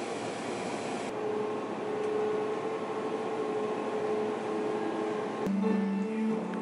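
Shop ambience: a steady hum with quiet background music of held notes, changing abruptly about a second in and again near the end.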